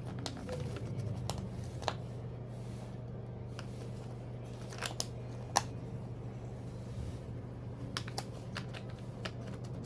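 Jigsaw puzzle pieces being handled and pressed into place: scattered light clicks and taps, a couple of them sharper, over a steady low hum.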